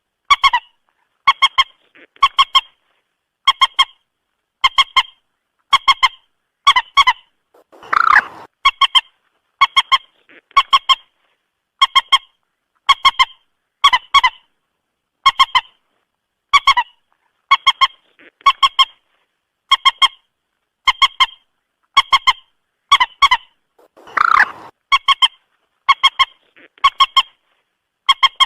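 Common moorhen calling: short, sharp honking notes repeated about once a second, with two longer, rougher calls about 8 s and 24 s in.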